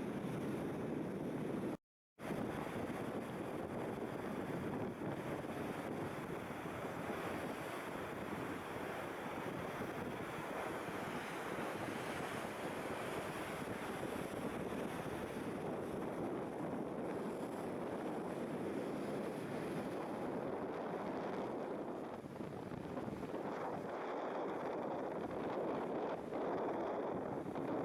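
Steady rush of wind and water on a cruise boat under way, with wind buffeting the microphone. The sound cuts out completely for a moment about two seconds in, then carries on.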